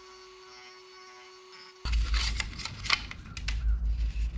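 A faint steady hum, then, about two seconds in, the sudden clicks and knocks of hard plastic being handled: the black LED light housing turned in the hands and pushed into the cut-out holes of the Lexan body for a test fit, over a low rumble.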